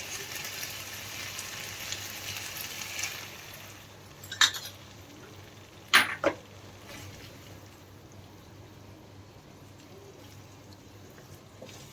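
Sauce sizzling in a hot pan, dying down after about three seconds, then two sharp clinks of a utensil against the pan.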